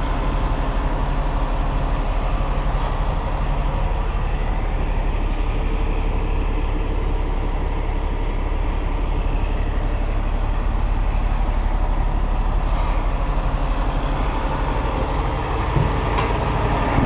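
Cummins ISX15 diesel engine of a 2015 Peterbilt 389 running steadily at an even pitch.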